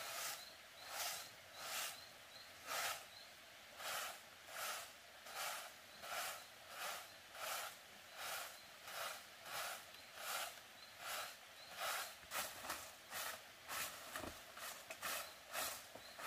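A broom made from a bundle of twigs sweeping bare dirt ground: a steady rhythm of scratchy swishes, somewhat faster than one a second, quickening to two or three a second in the last few seconds.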